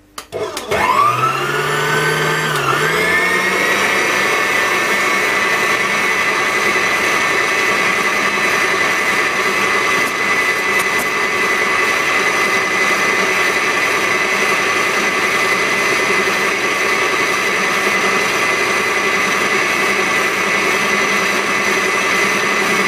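Electric stand mixer with a wire whisk starting up about half a second in, its motor whine rising in pitch over the first three seconds with a brief dip, then running steadily at high speed, whipping egg whites into meringue.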